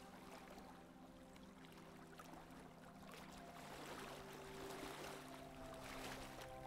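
Faint rush and splash of water along a sailboat's hull under sail, with soft background music of long held notes that shift down in pitch a few times.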